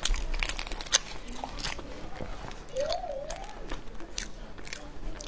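Close-miked eating sounds: chewing a mouthful of century egg, with many sharp, wet mouth clicks scattered through, one louder click about a second in.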